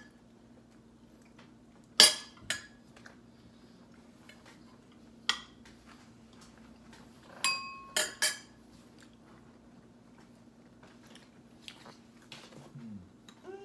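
Metal forks clinking against plates and serving dishes during a meal: about six sharp clinks, the loudest about two seconds in and a quick cluster of three around eight seconds, some with a short ringing tone, over a faint steady hum.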